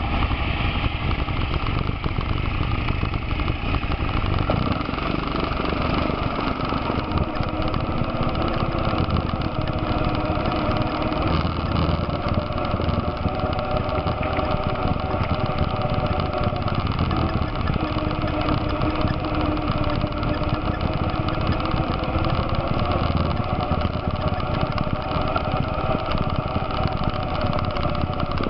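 ATV engine running at trail speed, heard from aboard the moving quad, its pitch rising and falling gently with the throttle over a steady low rumble.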